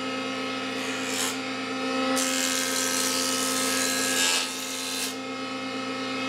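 Jointer running with a steady motor hum, its cutterhead hissing as a board's edge is fed across it to true the edge for a glue-up; the cutting is loudest from about two seconds in until about five seconds in.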